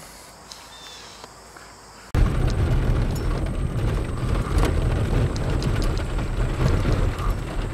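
Loud low rumble of a truck driving over a bumpy dirt track, heard from inside the cab, with scattered knocks and rattles. It starts abruptly about two seconds in.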